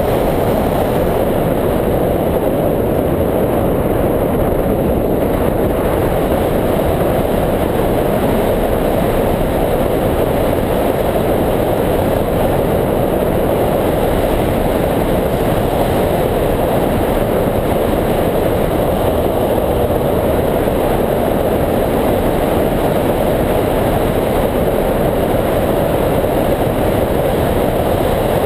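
Steady, loud wind noise rushing over the microphone of a camera mounted on a hang glider's wing in flight.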